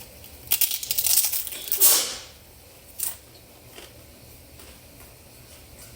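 Crackling, crinkling handling noise, like a takeout food container or its packaging being squeezed and moved, for about a second and a half starting half a second in, ending in a brief swoosh; a single sharp click follows about three seconds in.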